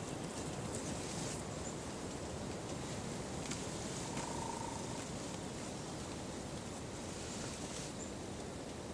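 Open-field outdoor ambience: a steady low rush of outdoor noise with a few faint, short, high bird chirps and a brief whistle-like note about four seconds in.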